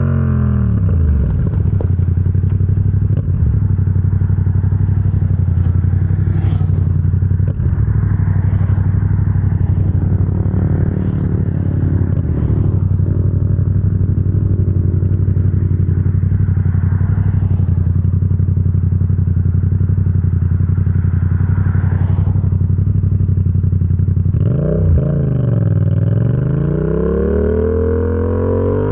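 Yamaha XSR700's parallel-twin engine through an SC Project exhaust: the revs drop at the start and settle into a long steady low-rev run. About 24 seconds in the revs swing up and down again, and they are climbing at the end.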